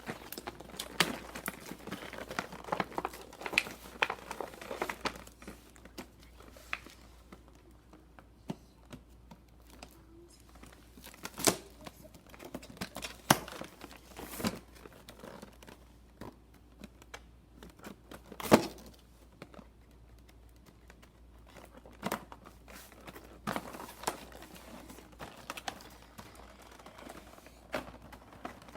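Plastic and cardboard toy packaging being crinkled and torn open by hand. There are irregular rustles and clicks throughout, and a few louder sharp snaps through the middle.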